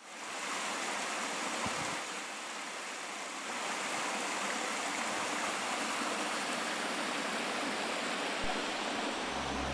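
Steady rushing of water falling over a waterfall, with music coming in just at the end.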